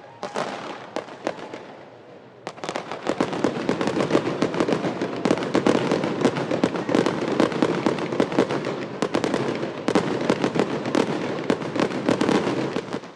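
Fireworks going off: a few scattered pops and bangs, then from about two and a half seconds in a dense, rapid crackle of many overlapping small bangs that keeps going until it stops just before the end.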